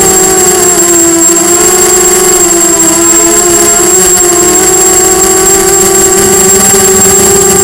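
Brushless motors and propellers of a Diatone Blade 250 racing quadcopter whining in flight, loud and close as heard from the camera mounted on the frame. The pitch sags slightly about a second in and climbs back later as the throttle changes, over a steady high-pitched tone.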